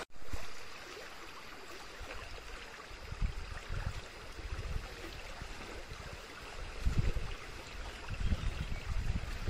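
Shallow stream running over stones, a steady rushing hiss, with irregular low rumbles coming in from about seven seconds in.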